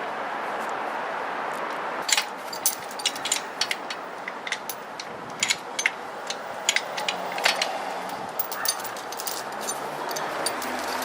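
Quick, irregular sharp clicks and clinks starting about two seconds in, over a steady rushing hiss: metal parts and tools knocking about while the engine is lowered and worked on.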